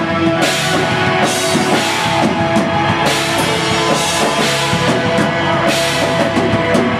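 Live rock band playing: drum kit with recurring cymbal crashes over electric guitars and keyboard, loud and steady.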